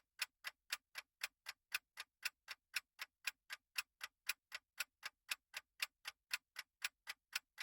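Countdown-timer clock sound effect ticking steadily, about four ticks a second, marking the time allowed to answer a quiz question.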